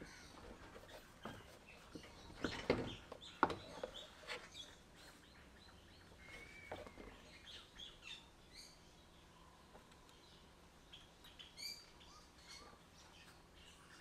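Faint birds chirping, with a few sharp knocks about three seconds in as the scooter's rear wheel is worked off its axle shaft.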